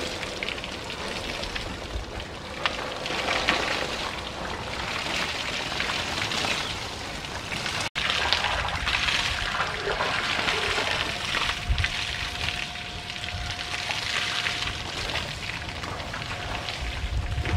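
Water from a garden hose spraying onto an Asian elephant's hide and splashing to the dusty ground: a steady hiss that swells and eases as the spray moves, with a brief break about eight seconds in.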